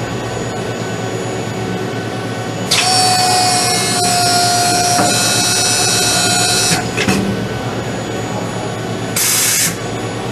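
Tregaskiss torch cleaning station reaming spatter out of a robotic MIG welding torch nozzle: the reamer starts suddenly and runs with a steady whine for about four seconds, then stops with a knock. About two seconds later comes a short, half-second hiss of anti-spatter spray onto the torch tip, over a steady workcell hum.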